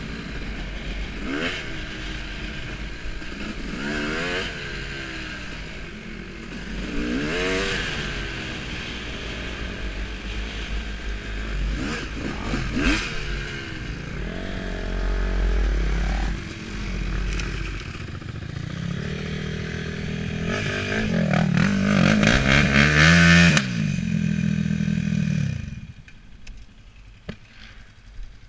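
Honda CR250 two-stroke dirt bike engine revving up and down as the bike rides a gravel trail, at its loudest around twenty seconds in, then cutting off suddenly near the end.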